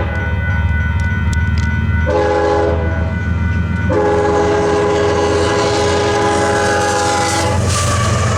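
Union Pacific freight locomotive's air horn sounding for a grade crossing: a short blast about two seconds in, then a long blast from about four seconds to near the end, over the steady low rumble of the approaching train.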